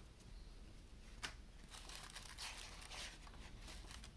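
Faint paper rustling: the pages of a printed brochure being handled and turned, with a sharp click about a second in.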